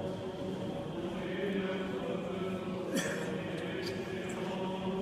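Orthodox liturgical chanting by a group of voices, holding long steady notes, over the murmur of a crowded church. There is a single sharp knock about three seconds in.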